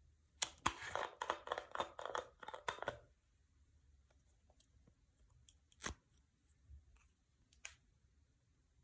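Clear slime being worked by hand, giving a dense run of crackling, popping sounds for about two and a half seconds, then a couple of single sharp clicks.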